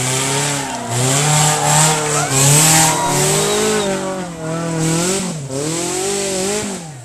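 Engine of a modified off-road 4x4 revving hard as it climbs a steep dirt slope, its pitch rising and falling several times. It is loudest about halfway through and dies down near the end.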